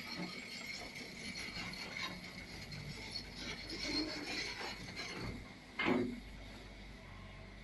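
JCB JS140 tracked excavator working: a steady high whine over a low rumble, with rattling metallic clicks and one louder knock about six seconds in.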